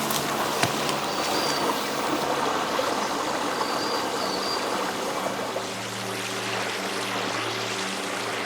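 Flowing stream water, a steady rushing hiss, under soft sustained background music notes that grow louder about halfway through.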